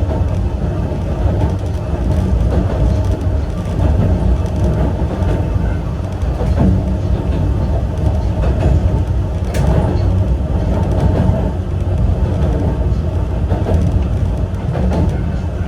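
Yokkaichi Asunarou Railway 260-series narrow-gauge electric train running along the line, a steady low rumble of wheels on rail and its nose-suspended traction motors. A single sharp click comes about nine and a half seconds in.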